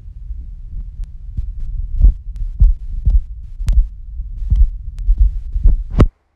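Handling noise on a phone's microphone: a steady low rumble, with about ten irregular thumps and knocks from about two seconds in, cutting off suddenly near the end.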